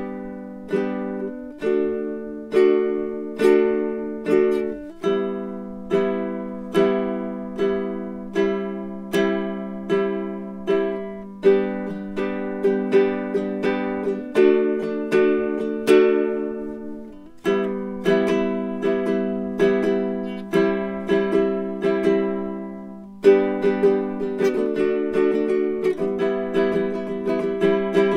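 Baritone ukulele played solo: a tune of plucked notes and chords, each one ringing and fading.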